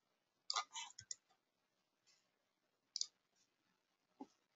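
Faint computer mouse clicks: a quick cluster of three or four about half a second in, then single clicks at about three seconds and near the end.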